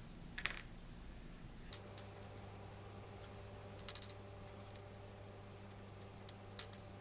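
Faint, scattered clicks and taps of a small model brush dabbing glue onto a plastic bat skeleton's wing bones on a tabletop. A low steady hum comes in about two seconds in.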